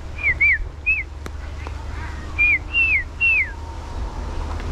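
Green pigeon calling: six short, clear whistled notes, each falling in pitch, in two groups of three about two seconds apart.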